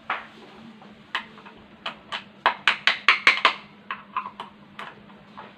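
Sharp metallic clicks and taps as a nut and screws are fitted on a Tullu pump motor with a screwdriver: irregular at first, then a quick run of about seven clicks in the middle, then a few more spaced out.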